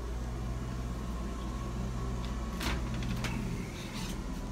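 Steady low hum of the RV's running equipment, with two light knocks about two and a half and three seconds in.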